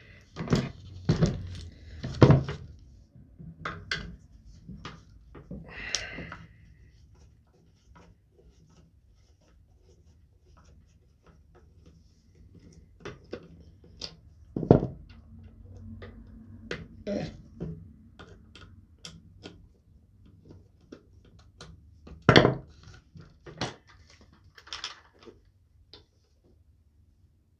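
Handling noise from disassembling an air rifle's buttstock: scattered clicks, taps and knocks of the stock parts and a screwdriver, with a brief scrape about six seconds in and a few louder knocks spread through.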